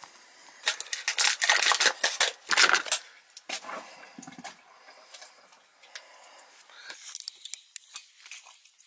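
Water poured and splashing into an air handler's secondary drain pan in a few loud pours over about two seconds, to test that the pan drains, followed by light clicks and taps.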